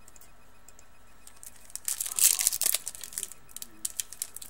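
A 2012-13 Certified hockey card pack wrapper crinkling in short, irregular bursts as it is handled, starting about two seconds in.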